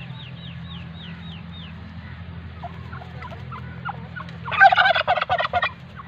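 A domestic tom turkey gobbling once, a loud, rapid rattling call lasting about a second, a little past the middle; it is a strutting tom, tail fanned in display.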